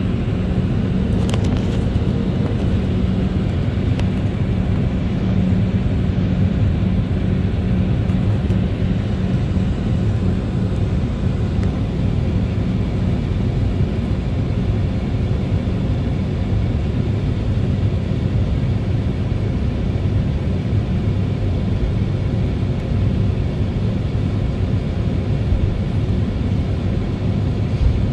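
Embraer 190 airliner taxiing, heard from inside the passenger cabin: its two GE CF34-10E turbofans running near idle under a steady rumble and whoosh, with a faint low hum that fades after several seconds.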